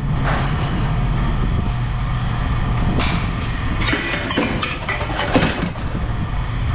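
An engine running steadily, with loose scrap metal clanking and rattling several times around the middle.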